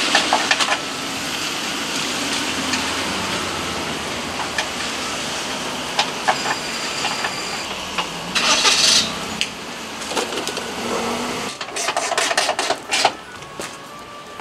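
Knocks, clicks and handling noises as a Mercedes-Benz front bumper is pushed and fitted back into place by hand, over steady background noise. A louder rustling scrape comes about halfway through, and a quick run of sharp clicks near the end.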